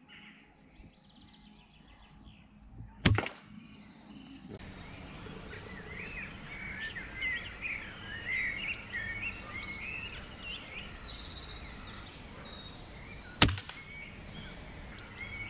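Two air rifle shots, each a single sharp crack, the first about three seconds in and the second about ten seconds later. Birds sing between them.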